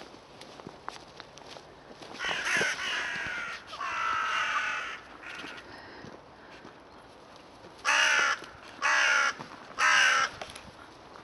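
Crows cawing: two longer, drawn-out calls in the first half, then three loud harsh caws about a second apart near the end.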